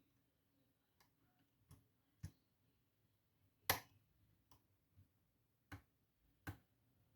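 Small sharp metal clicks from picking the Poltergeist challenge lock: the pick and pins clicking inside the cylinder, about eight clicks at uneven intervals, the loudest about halfway through.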